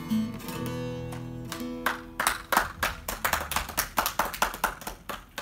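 A bağlama's last plucked notes ring out, then hand clapping starts about two seconds in, quick and uneven, and is the loudest sound here.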